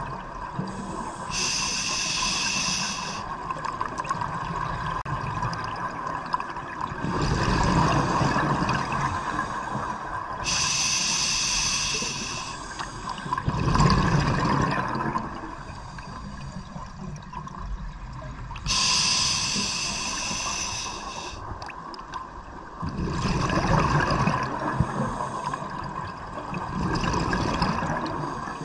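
Scuba diver breathing through a regulator underwater: a hissing inhale followed a few seconds later by a louder rush of bubbling exhaust, repeating slowly about three times.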